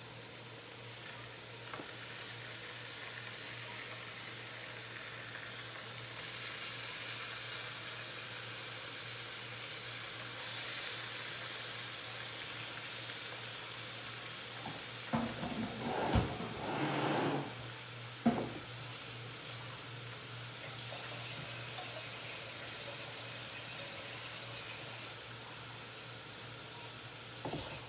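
Raw chicken breast pieces sizzling steadily in hot oil in a frying pan, the sizzle growing louder a few seconds in, over a low steady hum. A few loud clattering knocks come about halfway through.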